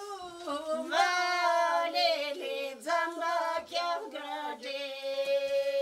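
A woman singing unaccompanied, in short bending phrases that settle into a long held note near the end.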